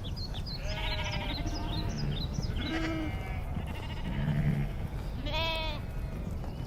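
Sheep bleating several times, high wavering calls about a second in, at about three seconds and again near the end, with a lower call in between. Short high bird chirps sound early on.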